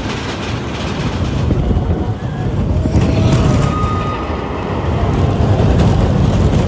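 Big Thunder Mountain mine-train roller coaster running along its track: a loud, steady low rumble.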